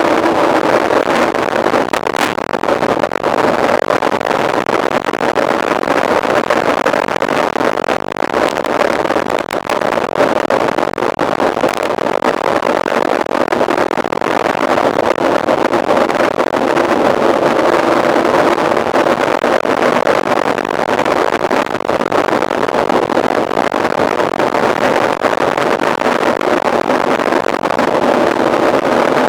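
Steady rush of wind on the microphone and rolling noise from a mountain bike ridden at speed, with a constant low hum underneath.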